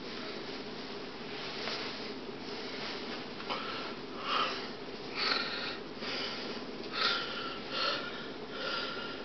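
Soft sniffing and handling noise while two fabric hand puppets are pulled on: short breathy bursts roughly once a second from about three and a half seconds in, over a steady hum.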